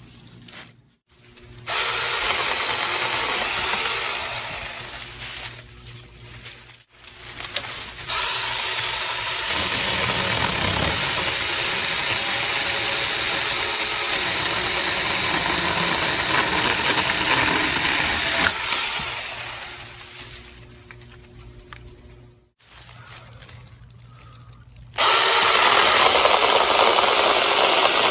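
Tomyvic 21-volt battery-powered 6-inch mini chainsaw running in repeated bursts: a short run about two seconds in, a long run of about ten seconds in the middle, and another run starting near the end, with quieter pauses between.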